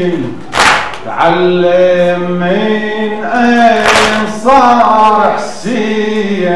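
A man chanting a Muharram lament (noha) in long, held, wavering notes. Twice, about three and a half seconds apart, a short, loud, noisy burst breaks into the chant.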